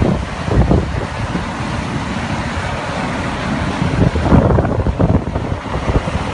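Strong blizzard wind buffeting the microphone: a loud, uneven rumbling rush that swells in gusts, strongest a little past the middle.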